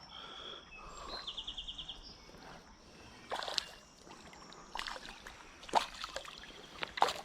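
Faint creek water with a handful of sharp clicks and rustles as a freshly caught smallmouth bass is handled at the water's edge, and a short high trill about a second in.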